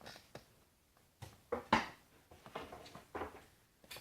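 A string of irregular clicks and knocks from hands handling the ceiling fan and its parts, the loudest a sharp knock just before the middle; no motor hum, as the fan is unplugged.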